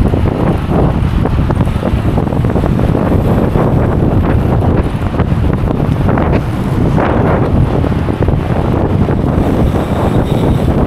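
Loud wind noise buffeting the microphone of a camera on a moving bicycle: a steady low rumble that surges now and then, most strongly about two-thirds of the way through.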